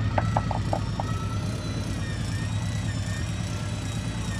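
Boat engine idling steadily with a low hum and faint high whine. A quick run of about five short blips sounds in the first second.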